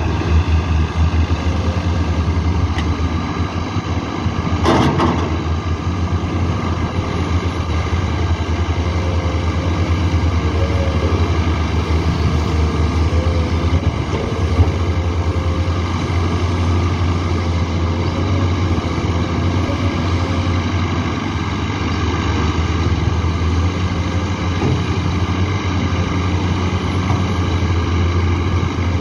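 Diesel engines of Komatsu hydraulic excavators running steadily at work, a constant low hum, with a brief sharp knock about five seconds in.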